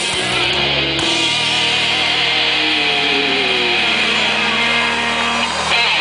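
Heavy metal band playing live: distorted electric guitars and bass over drums. The drum strokes stop about a second in, leaving the guitars ringing out with sliding, bending notes as the song ends.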